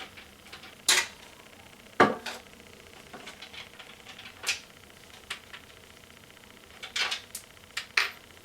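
Irregular clicks and knocks of screws and hardware being handled while a 200 mm case fan is screwed into a computer case. The loudest knock comes about two seconds in, with clusters of clicks near seven and eight seconds.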